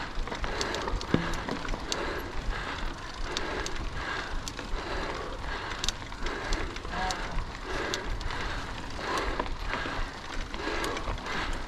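Mountain bike riding over a dirt track: continuous tyre noise with scattered clicks and rattles from the bike, and a low wind rumble on the microphone.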